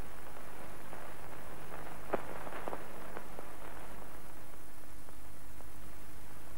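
Worn soundtrack of a 1930s film with no dialogue: a steady hiss and low hum, with a few crackling clicks about two to three and a half seconds in.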